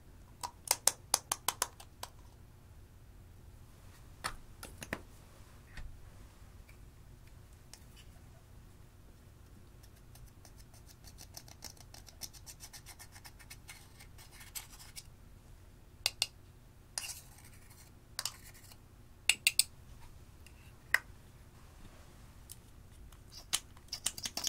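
Makeup handled over glass dishes: a small metal spatula scraping and crumbling blush powder out of its compact, with plastic makeup tubes and caps clicking. Sharp clicks come in clusters near the start and again at the end, with a stretch of soft scraping in between.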